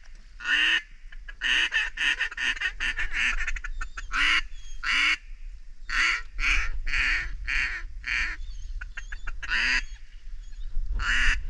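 Mallard duck call blown by a hunter to work passing ducks: loud hen quacks, with a quick run of short quacks about two seconds in, then a string of spaced quacks.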